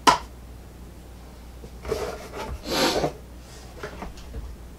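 A sharp click, then handling noise in a cardboard box, with a loud breath through the nose about three seconds in.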